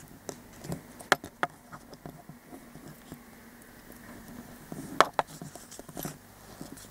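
Clicks and knocks from a plastic Stormfly dragon figure being handled and its posable wings moved, with a few sharp clicks about a second in and again around five seconds in, and light ticking between.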